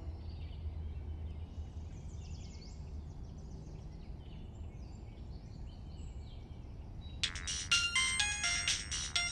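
A mobile phone ringtone starts suddenly about seven seconds in, a bright, fast electronic melody of repeating high notes. Before it there is only a faint low hum with a few faint high chirps.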